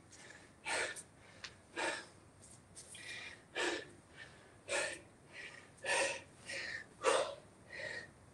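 A man breathing hard and catching his breath after exercise: loud breaths come about once a second.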